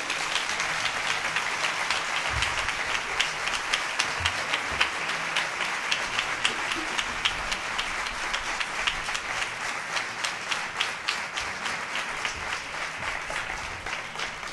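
Audience applauding, many hands clapping steadily and easing slightly near the end.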